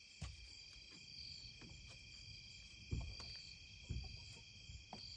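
Steady high-pitched evening chorus of crickets and other insects, with about four dull low thumps over it.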